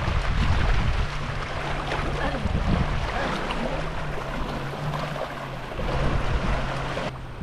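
Wind buffeting the microphone over sea waves washing along the shore, with a steady low hum underneath.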